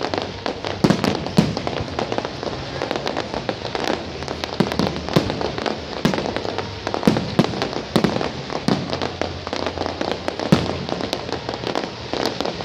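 Fireworks display: dense, irregular crackling and popping from bursting aerial shells, with louder booms every second or so.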